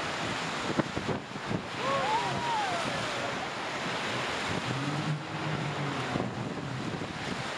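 Whitewater rapids rushing and splashing against an inflatable raft, with wind buffeting the microphone and a few sharp knocks of spray in the first two seconds. A person's voice slides down in pitch briefly about two seconds in, and a low voice sounds around five seconds in.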